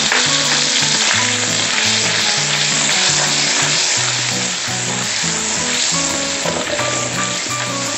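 Minced garlic sizzling steadily in melted butter in a wok as it is stirred with a spatula, being sautéed until fragrant. Light bossa nova background music with a stepping bass line plays underneath.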